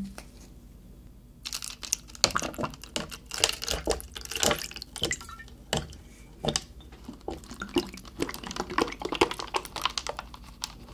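Whisky poured from a bottle into a glass: irregular gurgles, drips and small clinks, starting about a second and a half in.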